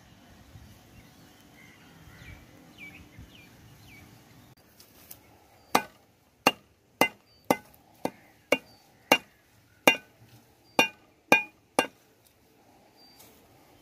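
Hand sickle chopping a bunch of Bermuda grass against a wooden log: about a dozen sharp strikes, roughly two a second, starting about six seconds in. Before them, faint rustling of grass being handled.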